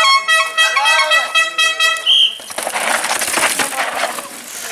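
A spectator's horn blows loudly for about two seconds, its pitch shifting partway through. After it stops, a downhill mountain bike's tyres scrub and skid through loose dirt on a turn.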